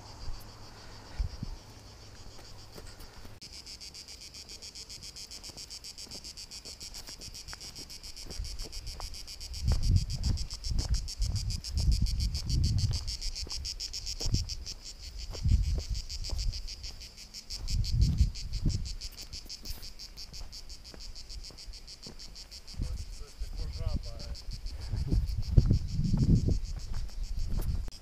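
A steady, fast-pulsing high trill of singing insects. From about ten seconds in, irregular low rumbling bursts on the microphone come and go over it and are the loudest sounds.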